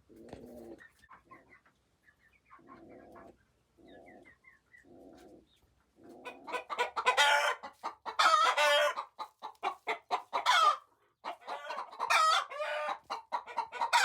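Chickens calling: soft, low clucks for the first few seconds, then from about six seconds in a run of much louder, repeated calls, each about a second long.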